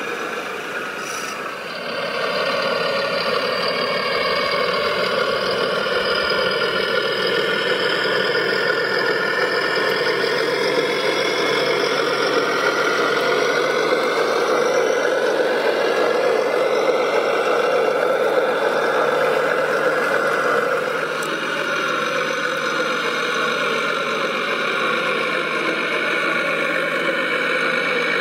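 Radio-controlled scale construction machines running: a wheel loader, then an articulated dump truck. They make a steady mechanical running sound with several whining tones that glide up and down in pitch, getting louder about two seconds in.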